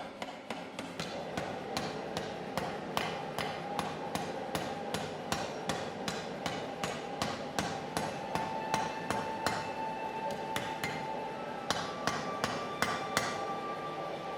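Blacksmith's hammer striking steel on an anvil in a steady rhythm, about three blows a second, while forging a knife blade.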